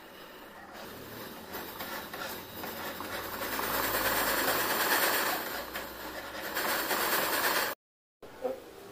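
A jeweller's soldering torch flame hissing steadily on a silver ring as it is heated for soldering, growing louder about three seconds in and dying away shortly before a sudden cut near the end.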